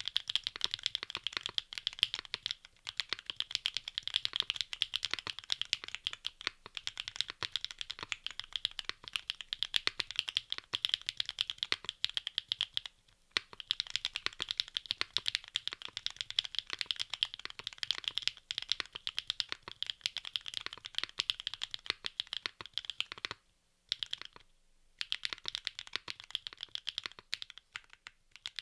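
Fast, continuous typing on a QK65 R2 mechanical keyboard with SAROKEYS BSUN BCP linear switches, PBT keycaps on an aluminium plate: a dense stream of keystroke clacks. It breaks off briefly about halfway through and again for a second or so near the end.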